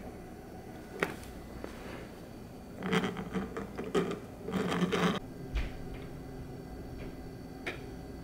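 Handling of a 3D-printed plastic camera lens: a sharp click about a second in, then bursts of plastic rubbing and grinding against plastic as the printed barrel is twisted, with a few light ticks afterward.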